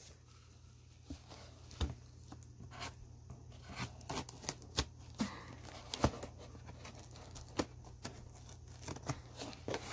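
Scissors cutting open the taped seams of a sealed cardboard box, with irregular clicks, scrapes and tape tearing, fairly quiet.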